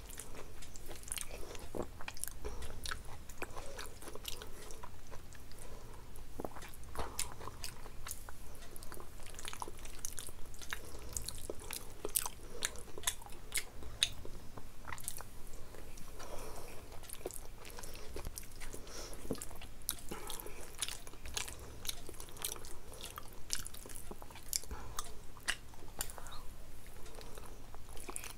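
A person eating: steady chewing and biting, with many short, sharp crunches and wet mouth clicks scattered throughout.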